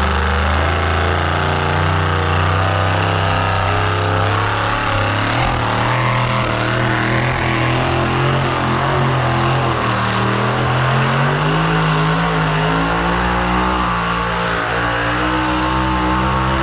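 Pulling truck's engine running hard under full load as it drags a weight-transfer sled down the track; its pitch climbs about ten seconds in and holds there.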